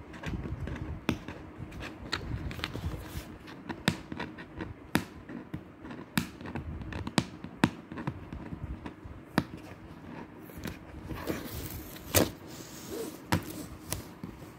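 Fingers tapping, knocking and rubbing on a cardboard box: a string of sharp, irregular taps over low handling rumble, with a short rustling scrape near the end.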